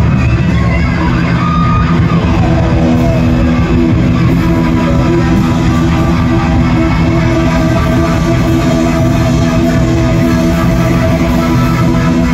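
Live rock band playing loud, with electric guitars, bass and drums and long held notes, without vocals.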